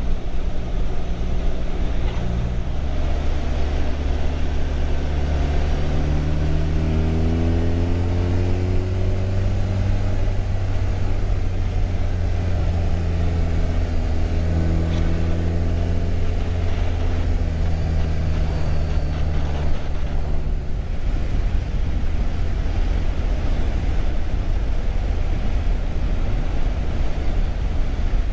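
Motorcycle engine running under way, its note rising and holding, over steady wind rush on a helmet-mounted microphone. About twenty seconds in, the engine note drops away, leaving mostly wind rush.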